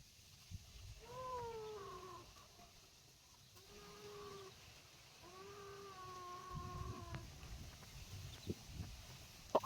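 An animal calling three times in long, drawn-out cries, the first one falling in pitch and the last one the longest.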